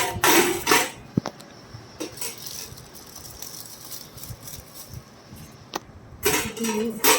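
Rustling and clatter of packaging being opened and microwave accessories handled, with a sharp click about a second in and another burst of rustling near the end.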